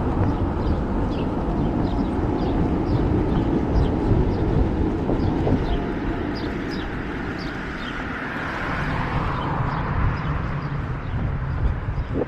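Wind rumbling on a running camera's microphone, with a series of short high chirps, about two a second, and the hiss of a passing vehicle about eight seconds in.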